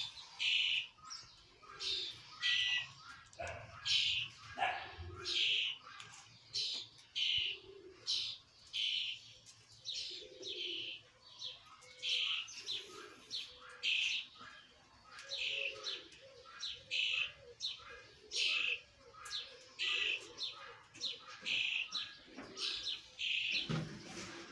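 Emu chicks peeping: a steady series of short, high calls, repeating about two a second.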